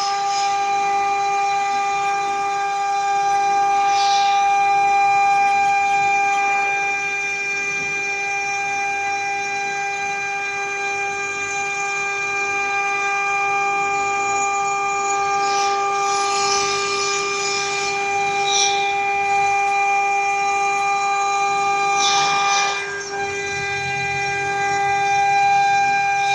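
CNC router spindle running with a steady high-pitched whine, with a hiss of cutting over it that swells several times.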